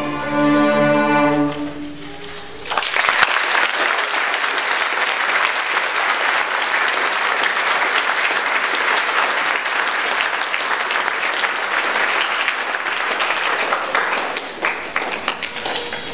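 A string orchestra of violins, cellos and double bass holds its final chord and releases it, then after a brief pause the audience breaks into applause that runs on and thins out near the end.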